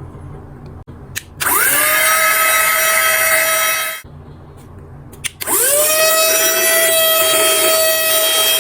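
Handheld mini car vacuum cleaner switched on with a click, its small motor whining quickly up to speed and running steadily for about two and a half seconds before cutting off. About a second and a half later it clicks on again and spins up to the same steady whine.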